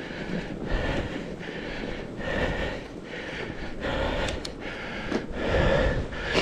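A rider breathing hard while pedaling a fatbike through snow, over a steady rumble of tyres and drivetrain. The breaths swell about once a second and grow louder near the end.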